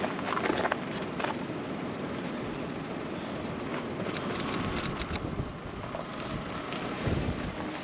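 Fabric rustling and handling clicks as a surfboard in a camouflage board sock is pulled out of a car's boot, with a cluster of sharp clicks about four seconds in, over a steady outdoor rumble.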